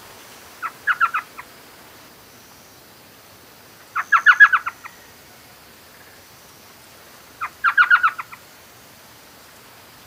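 An owl calling: three short bursts, each a quick run of sharp notes, spaced about three and a half seconds apart.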